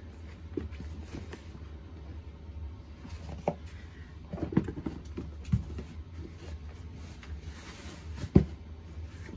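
Slippers and lace-up boots being stepped out of, picked up and set down on a hard floor: scattered soft scuffs and knocks, a cluster of them midway, and one sharper thump near the end, over a steady low hum.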